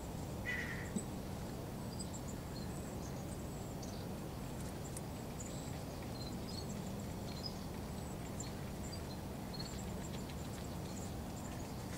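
Outdoor park ambience: a steady low rumble with faint, scattered high chirps of small birds, and one brief call about half a second in.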